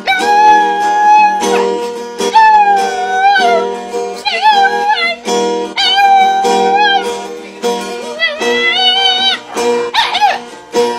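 A dog howling along to music: a series of about six long, high howls, each held steady and then wavering or bending at the end, over a sustained musical accompaniment.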